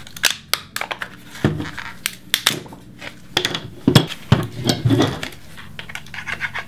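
Plastic case of a laptop battery pack cracking and snapping as it is twisted and ripped apart with tongue-and-groove pliers: a run of sharp cracks and clicks, loudest about four seconds in.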